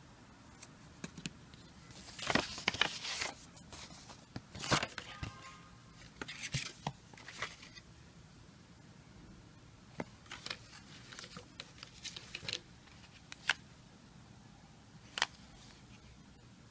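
Hands handling a paper coin cover and a plastic coin case: rustling and scraping with sharp clicks, busiest between about two and eight seconds in, then scattered clicks.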